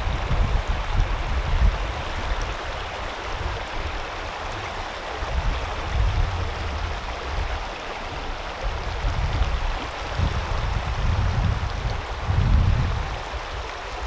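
Shallow mountain creek running over rocks, a steady rush of water. Wind buffets the microphone in low gusts that come and go, strongest near the start and again near the end.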